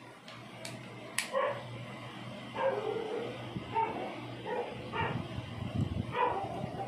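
A dog yapping in short barks, roughly one a second. About a second in, two sharp clicks come from the selfie-stick tripod being handled.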